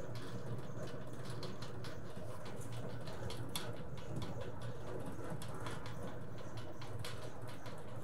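Solder paste mixer, modified with a bigger motor spinning at twice stock speed, running with jars loaded: a steady low hum with many fast, irregular ticks over it.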